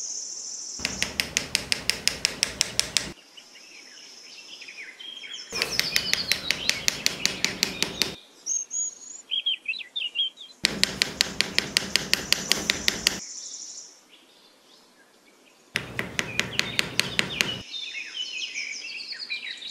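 Four bursts of rapid, even tapping, about ten taps a second and two to three seconds each, as thin sticks are worked down into sand to stand as posts. Birds chirp in the gaps.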